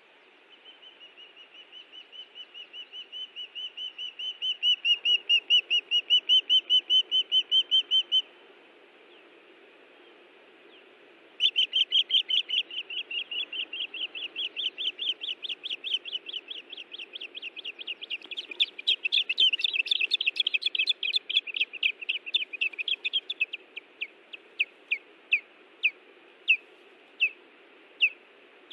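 Ospreys at their nest giving alarm calls in defence of the nest: long, rapid runs of high, whistled chirps, several a second, that build louder. The calls break off about eight seconds in and resume after a short pause, then slow to single chirps spaced apart near the end.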